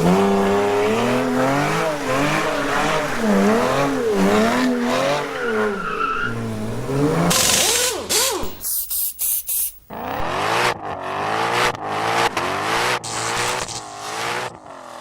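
A car engine revving up and down over and over, with tyre squeal. After about seven seconds the sound breaks into short, chopped-up pieces.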